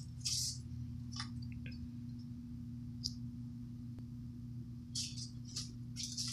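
A steady low hum, with a few short, high chirps scattered through it.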